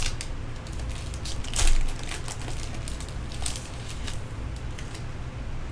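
Trading cards being handled and a foil card pack wrapper crinkling: a run of short rustles and clicks, the loudest about a second and a half in, over a steady low hum.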